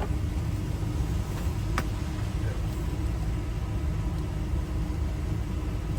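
A vehicle engine idling, a steady low rumble, with a single sharp click about two seconds in.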